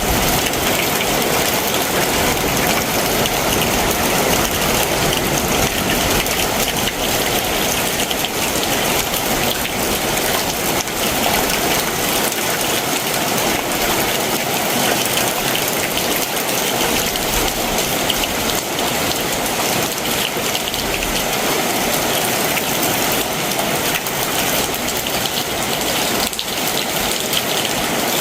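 Heavy summer monsoon downpour falling steadily, a dense even hiss of rain.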